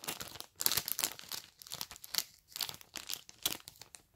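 Candy and mask packaging crinkling and rustling as it is handled, in quick irregular crackles.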